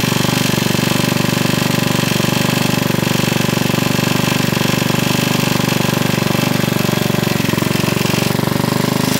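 Rebuilt scrap-yard generator's engine running steadily at a constant speed with a fast, even firing pulse.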